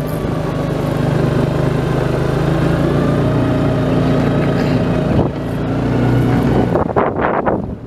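Engine of a vehicle driving slowly along a rough grass track, running steadily. About seven seconds in, the engine sound gives way to gusts of wind on the microphone.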